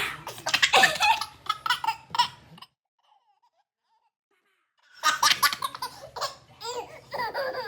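Laughter in bursts, a baby's among it, breaking off for about two seconds of dead silence near the middle, then a baby laughing and squealing in high rising-and-falling calls.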